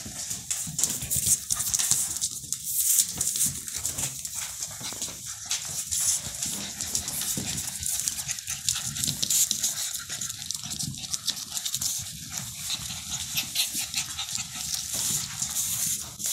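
A litter of standard schnauzer puppies playing and scuffling together, with a steady patter of many small clicks and rustles as their claws and bodies move on the floor and the toys.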